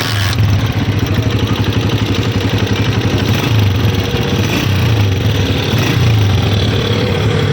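Honda CG 125's single-cylinder four-stroke engine running steadily with a mechanical noise from inside the engine, which the mechanic traces to loose valve tappets (excess tappet clearance) on a new bike.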